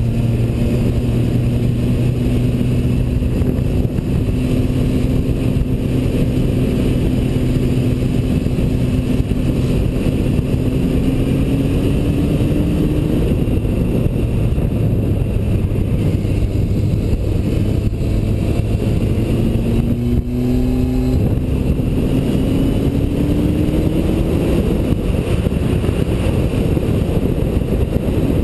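Yamaha motorcycle engine running steadily under way, with constant wind and road noise. Its pitch climbs slowly, breaks briefly about twenty seconds in, then climbs again.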